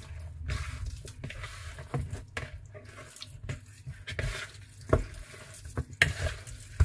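Raw, spice-coated chicken wings squelching as they are mixed by hand in a plastic bowl. Irregular wet slaps run throughout, with a few sharper knocks about five and six seconds in and again near the end.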